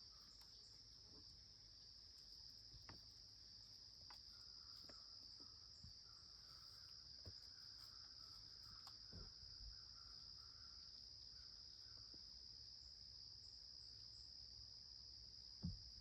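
Faint, steady high-pitched insect drone, with a few soft ticks scattered through it.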